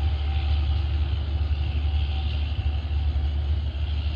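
Passenger train running away down the line: a steady low rumble with a hiss from its wheels on the rails.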